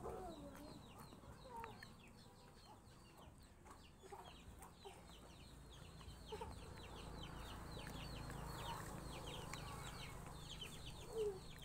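Chickens clucking now and then over busy, rapid high-pitched chirping of birds.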